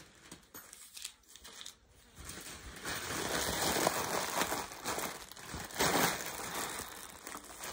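Clear plastic packaging bag crinkling as it is handled, starting a couple of seconds in and swelling louder twice.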